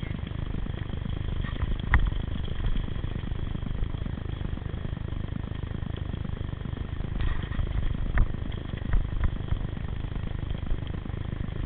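Mountain bike rolling down a rough forest singletrack: a steady low rumble of wind and tyres, with a few sharp knocks and clatters from the bike over bumps. The loudest knocks come about two seconds in and about eight seconds in.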